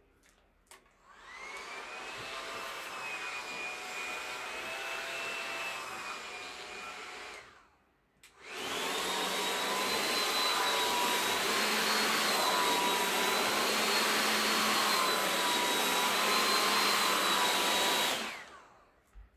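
Handheld hot-air styling brush running twice with a steady rush of air and a motor whine. The first run is quieter and lasts about six seconds; after a brief stop, the second run is louder, at a higher setting, and lasts about ten seconds before it is switched off.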